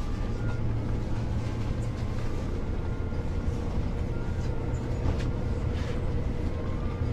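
Inside a moving Tateyama Highland bus: a steady low engine drone with road noise, and a few light ticks from the cabin.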